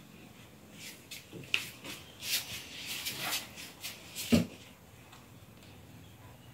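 Kitchen handling sounds while a pastry brush dabs egg wash onto dough rolls in a baking tray: scattered light taps and scrapes, with one sharper knock about four seconds in.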